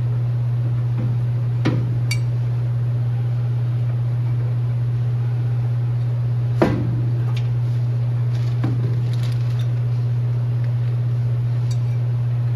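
Metal clinks and knocks of brake parts being handled as the front rotor and wheel bearing go onto the spindle. One brief ringing ping comes about two seconds in and the loudest knock about halfway through, over a steady low hum.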